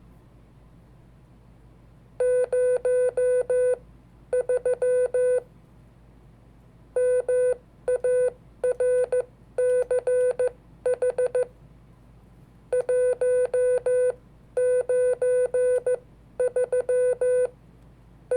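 Morse code (CW) sent as a single steady beeping tone, keyed on and off in short and long elements. The elements come in separate characters with short pauses between them, here spelling out a date.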